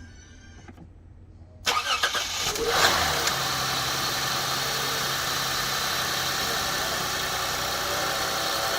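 2006 Lexus GS300's 3.0-litre V6 cranking briefly and catching about two seconds in, with a short flare in revs, then settling into a steady idle. It now starts because the blown IG2 ignition fuse that left all the coils without power has been replaced.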